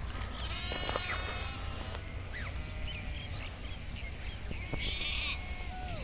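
Sheep in a grazing flock bleating: a high, wavering bleat about a second in and another near the end, with shorter calls between them over a steady low rumble.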